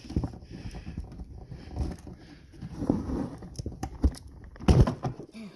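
Hands working a fastener loose on a car headlight and HID ballast assembly: irregular clicks and knocks of plastic and metal parts, with one louder knock near the end.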